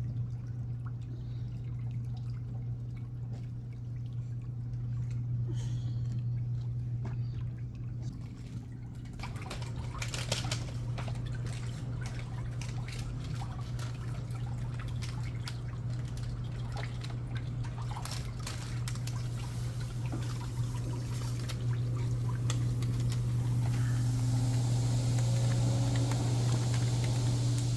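Water pouring and trickling into a pedicure chair's foot basin, over the steady low hum of the chair's motor. The water noise grows louder about a third of the way in and brighter toward the end.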